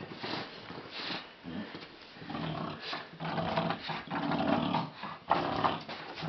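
Bulldog growling, in a low rumble that starts about two seconds in and runs for a few seconds, while she guards her toy in play.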